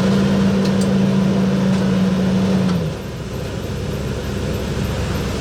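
Car engine just after starting, running at a raised idle, then dropping to a lower, quieter idle about three seconds in.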